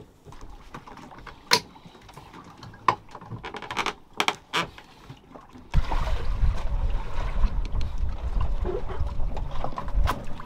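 A few sharp knocks and clicks against a quiet background. Then, about six seconds in, a steady low rumble of wind buffeting the microphone out on open water sets in suddenly.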